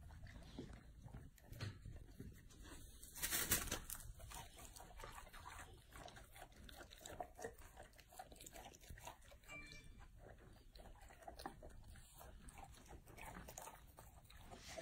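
A golden retriever chewing and eating dumplings: faint, irregular wet chewing and crunching, with one brief louder noise about three and a half seconds in.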